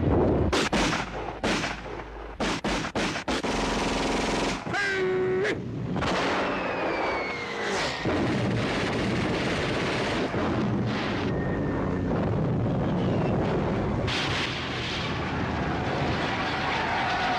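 A burst of gunfire and blasts: single shots, then a quick rattle of rapid fire. Falling whistling tones follow a few seconds in, then a steady rumbling din.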